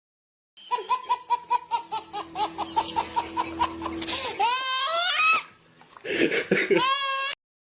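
High-pitched laughter: a fast run of 'ha' pulses at about four or five a second, slowly falling in pitch, breaking into a long wavering squeal that rises in pitch. After a short pause comes a second, shorter burst of squealing laughter near the end.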